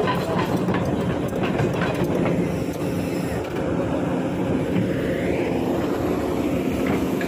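Kobelco hydraulic excavator's diesel engine running steadily, with a clatter of short metallic clicks for roughly the first two seconds.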